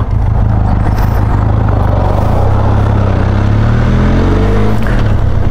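Motorcycle engine running under a steady rush of wind noise. Its pitch rises about four seconds in as the engine revs up.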